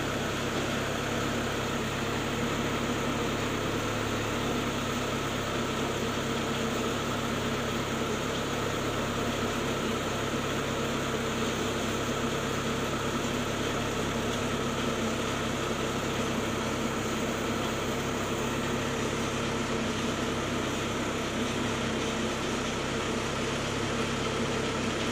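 Clay brick extruding machine running steadily, its drive motor giving an even, unbroken drone with a steady hum.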